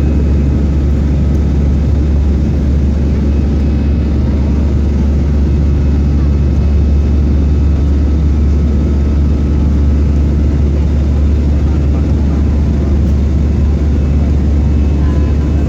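Steady cabin noise of an Airbus A320 airliner under way, heard from inside the passenger cabin: a loud, even low rumble of engine and airflow with a faint steady whine over it.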